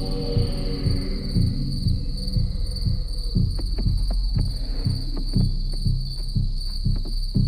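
Crickets chirring steadily, with a low pulsing beat about twice a second beneath them. A run of sharp clicks comes in from about halfway.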